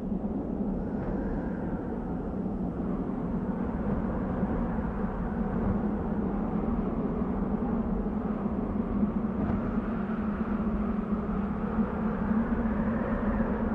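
Desert wind blowing steadily, a low rushing with faint whistling in the gusts, swelling a little toward the end.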